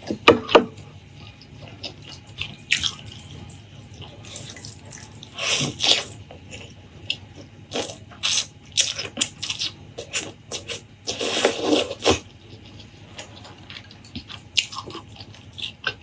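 Close-miked eating sounds: wet chewing with many short mouth clicks and smacks, and two longer wet sounds about five and a half and eleven seconds in.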